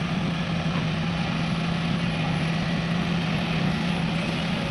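Diesel engine of a heavy machine, an excavator or dump truck, running steadily at a constant speed with a low, even hum.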